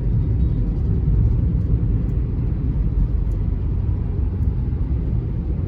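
Steady low rumble of a car driving on the road, engine and tyre noise heard inside the car's cabin.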